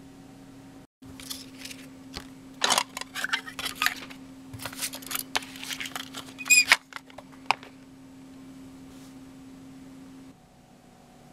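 Hands handling a plastic cassette case and its paper insert: rustling and a series of sharp plastic clicks, the loudest a ringing click about six and a half seconds in, over a steady low hum. The handling stops about two seconds later.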